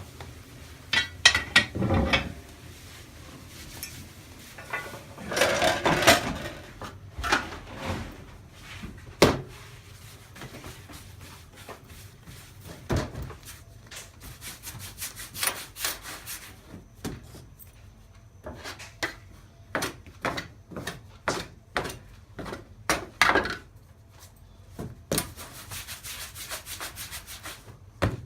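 Irregular scraping and rubbing on wood, broken by sharp knocks.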